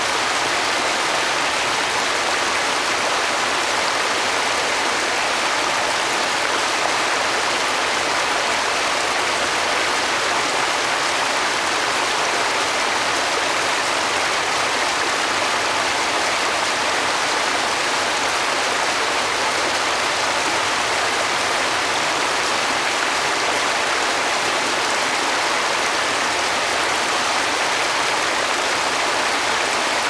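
Small waterfall cascading over boulders: a steady, unbroken rush and splash of falling water, mostly high-pitched with little deep rumble.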